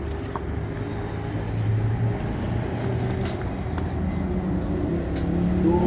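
A steady low engine hum with a few light clicks, a sharper one about three seconds in, growing slightly louder toward the end.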